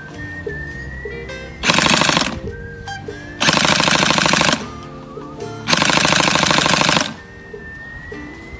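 Three full-auto bursts from an ARES G36K airsoft electric gun with electric blowback, a short one followed by two longer bursts of about a second each, over background music.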